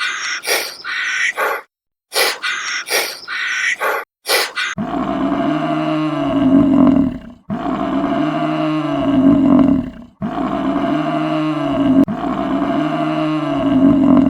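A run of short, quick, high-pitched animal calls, then an animal roaring: three long roars in a row, each rising and then falling in pitch.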